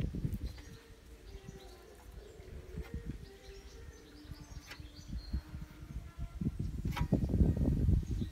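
Outdoor ambience: low, irregular rumbling noise that swells again near the end, with a few faint bird chirps above it.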